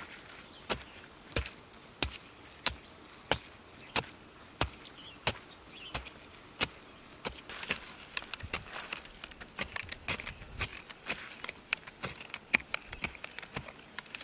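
A short-handled hand digging tool striking into dry, gravelly soil, a sharp strike about every two-thirds of a second. About halfway through, the strokes turn quicker and lighter, with loose soil and pebbles scraping and spilling.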